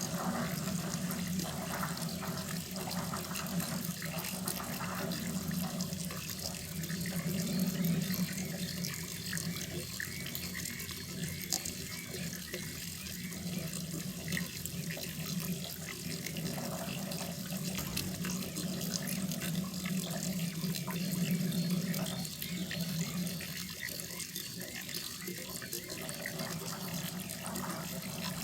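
Running water pouring and splashing steadily into a koi pond.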